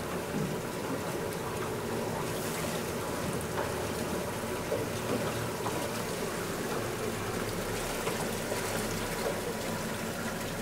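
Steady rush and wash of water along the hull of a boat under way, with a faint low engine hum underneath.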